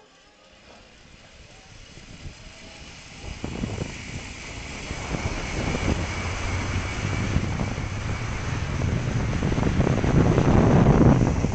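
Wind rushing over the microphone of a camera riding a seated zip line, growing steadily louder as the ride picks up speed down the cable.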